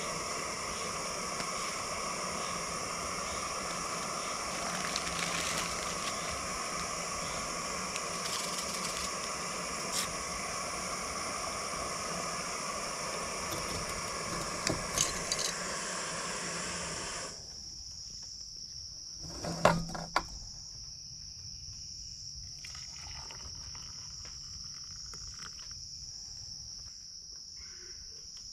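Canister gas backpacking stove burner running with a steady hiss, which stops suddenly about two-thirds of the way through. A steady high chirring of crickets carries on beneath it and after, with a few clicks and a brief clatter of handling soon after the hiss stops.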